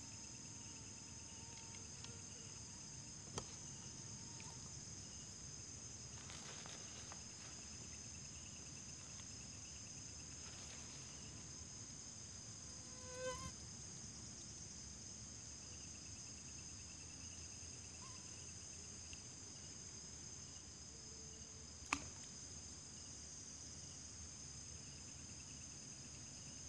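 A steady chorus of night insects such as crickets, trilling high and faint, with a short run of chirps about halfway through and a couple of light clicks.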